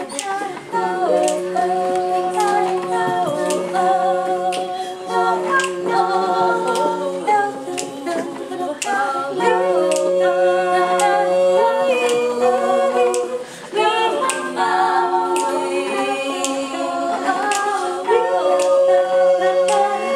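Women's a cappella pop group singing in several-part harmony: held chords over a steady low note, with a regular clicking beat that keeps time.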